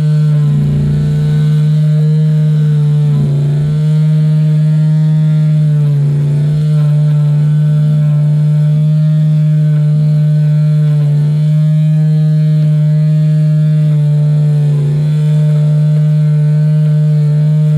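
Lawn mower engine running at a steady speed, a loud drone that sags briefly in pitch every few seconds.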